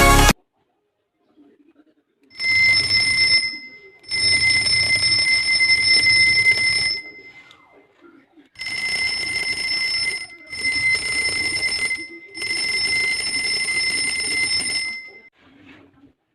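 Homemade wireless doorbell's electric bell ringing in five bursts, each a rattling ring of about one to three seconds, with short gaps between. After the longer bursts the bell tone rings on briefly.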